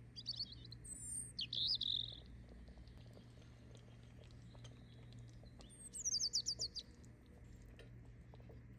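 A small bird chirping in two bursts: a few quick high chirps in the first two seconds, then a fast run of about eight short descending notes around six seconds in.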